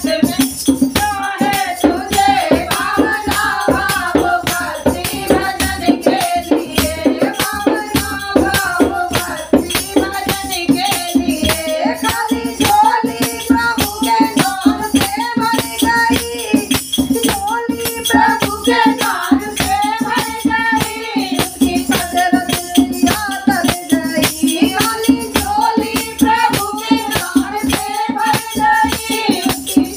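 Women singing a Hindi devotional bhajan together, accompanied by a dholak drum and small manjira hand cymbals clashing in a fast, steady rhythm, with a shaken rattle over them.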